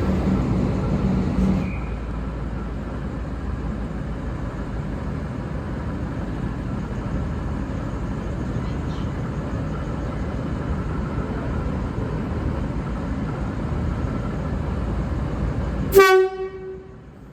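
V/Line VLocity diesel railcar set VL37 running with a steady rumble, then one short, loud blast of its horn near the end.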